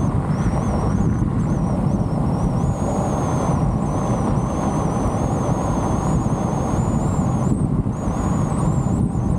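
A car driving along a road: a steady rumble of tyres and engine.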